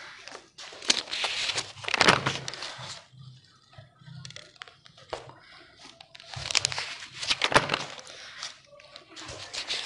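Paper rustling and crinkling, like pages being turned, in three bursts: about a second in, again around six to eight seconds, and near the end.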